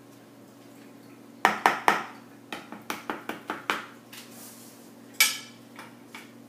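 Stick blender knocked against the rim of a bowl of soap batter: three sharp raps in quick succession, then a run of lighter clicks and knocks, and one ringing clatter near the end.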